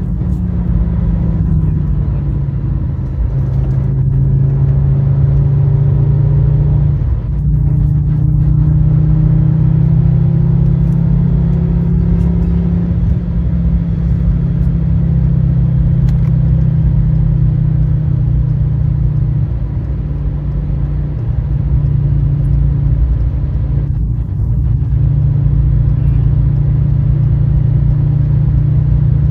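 A 2004 Fiat Stilo Abarth 2.4 20V's five-cylinder engine pulling under acceleration, its note climbing through the revs, with a gear change about seven seconds in. It eases off for a couple of seconds past the middle, then pulls again.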